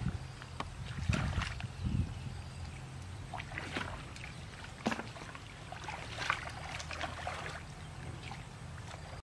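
Water sloshing and splashing in shallow muddy water as hands and legs churn through it, groping in the mud for fish: irregular small splashes, some a little louder, over a low steady rumble.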